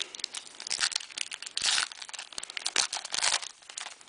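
Foil trading-card pack wrapper crinkling as it is torn open and handled, in quick irregular crackles that die down near the end.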